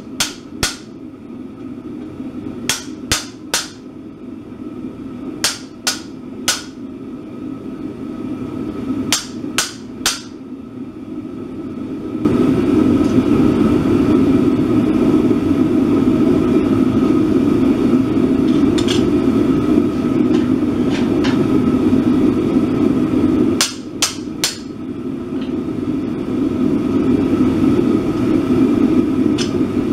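Blacksmith's hammer striking red-hot steel on an anvil in short groups of two or three ringing blows. About twelve seconds in a loud steady drone starts up and runs on, with one more group of blows about twenty-four seconds in.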